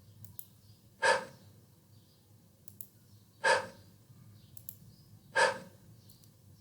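A voice demonstrating the English consonant /h/ three times, about two seconds apart: short, breathy puffs of air blown through the open mouth without voicing.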